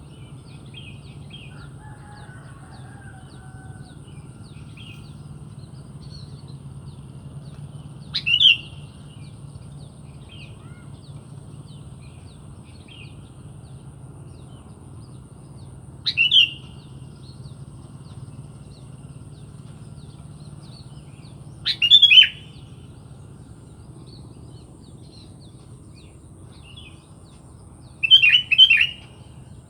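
Sooty-headed bulbul (kutilang) giving four loud, short calls several seconds apart, the last a quick cluster of notes, with fainter chirps between them over a steady low hum.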